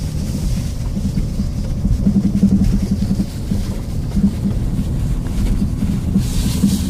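Mercedes-Benz GLA 220d's four-cylinder diesel and its tyres on a rough dirt track, heard as a steady low rumble inside the cabin, with a brief hiss near the end.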